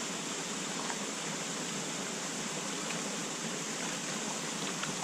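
Steady rush of a fast-flowing, high-gradient mountain creek.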